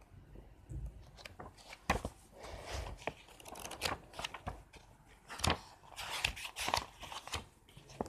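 Comic book pages being flipped by hand: a run of irregular paper rustles and sharp flicks, starting about a second in.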